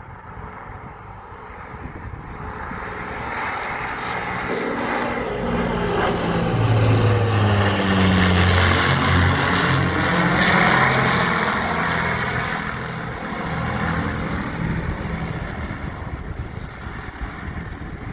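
Avro Lancaster bomber's four Rolls-Royce Merlin piston engines running as it flies past overhead. The sound grows louder and is loudest about seven to eleven seconds in, where the engine pitch drops as the aircraft passes. It then fades away as the bomber moves off.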